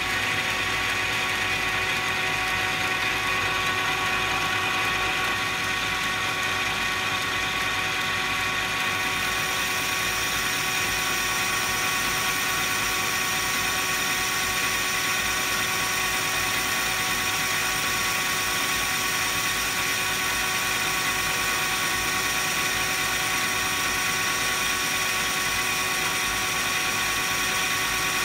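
Metal lathe running steadily, a carbide tool taking a light finishing cut across the workpiece's shoulder under power cross feed: an even gear whine over cutting noise, with a higher whine joining about nine seconds in.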